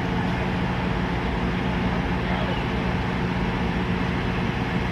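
Steady engine drone with a constant low hum, unchanging throughout, over a wash of outdoor noise.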